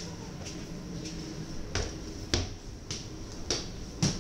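Footsteps on the hard floor of a double-deck train carriage: sharp clicks at about two steps a second, over a low steady rumble.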